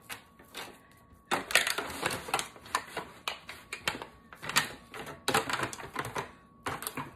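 Hands squishing and patting raw ground-beef meatloaf into a loaf in a thin aluminum pan, with irregular sharp crinkles and clicks of the pan flexing under the pressure. It starts about a second in.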